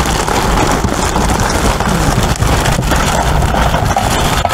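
Plastic garbage bags rustling and crinkling right against the microphone as they are handled and shifted, a loud continuous rustle.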